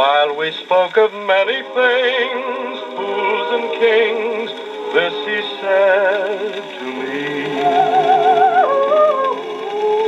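A 78 rpm shellac record played acoustically on an HMV 102 wind-up gramophone. A male crooner sings with vibrato over a backing vocal group, all voices and no instruments. The sound is thin and boxy, with no deep bass or high treble.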